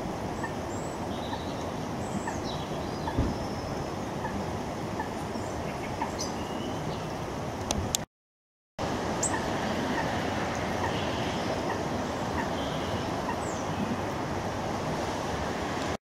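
Small garden birds calling faintly: scattered brief high chirps and a few short falling whistles over a steady rushing background noise. The sound drops out for a moment about eight seconds in.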